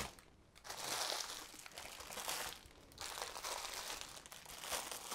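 Plastic packaging crinkling as bundles of plastic-bagged diamond-painting drills are picked up and moved, in two long rustling stretches with a short pause between.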